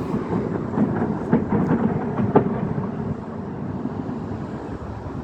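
Distant air-defence fire over the city: a low rolling rumble that swells, with several sharp cracks about one to two and a half seconds in, then slowly fades.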